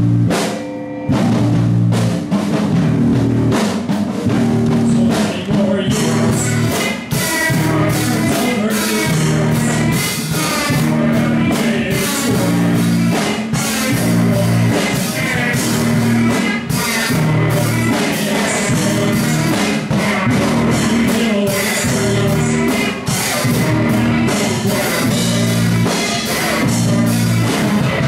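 Live rock band playing: drum kit, bass and guitar, with a voice singing over them. The music thins briefly about a second in, then runs on at full level.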